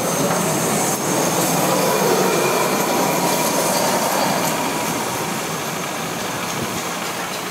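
Vintage two-axle electric tram of the Lisbon Remodelado type running along street rails amid street noise, with a thin steady squeal of wheels on the rails for a few seconds.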